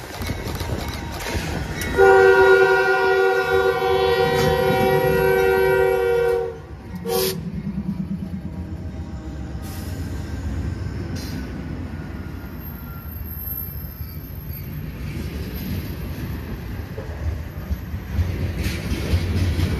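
Diesel locomotive's multi-chime air horn sounding one long blast of about four seconds, then a short toot, followed by the rumble of the locomotive and the clatter of wheels on the rails as the train rolls by.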